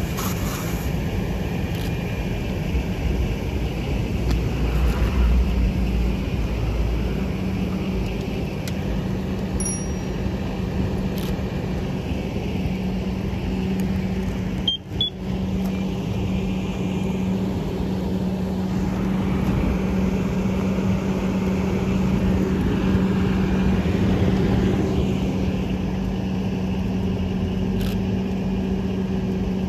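Fire engine's pump engine running steadily with a constant hum while a hose line knocks down a burning car, with the noisy rush of the water stream and fire. The sound drops out for a moment about halfway through.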